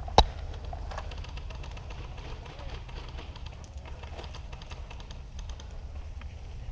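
A single sharp airsoft gun shot about a fifth of a second in, followed by a steady low outdoor rumble with faint scattered clicks.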